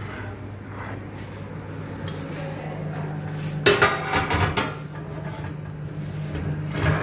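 Ceramic baking dish knocking and rattling against the metal oven rack as it is slid into the oven, in a cluster of clatters about four seconds in and again near the end. A steady low hum runs underneath.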